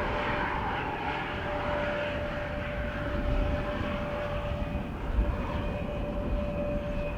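Jet airliner's engines running, a steady whine over a broad hiss, with a second, higher whine joining about two-thirds of the way in. Low wind rumble on the microphone underneath.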